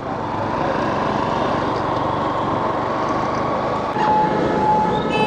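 Honda X-Blade single-cylinder motorcycle riding, its engine mixed with wind rush. About four seconds in, as it slows into stopped traffic, vehicle horns start honking in repeated short blasts at several pitches.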